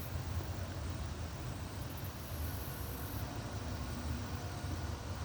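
Steady background rumble and hiss, with no distinct event.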